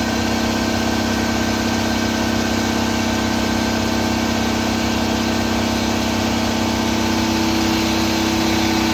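Steady hum of a running motor-driven machine, several fixed tones held evenly throughout with no change in speed.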